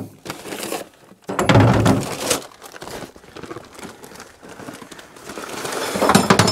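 Plastic sack rustling and crinkling as it is handled and opened, with a loud rustle about a second and a half in and another building up near the end.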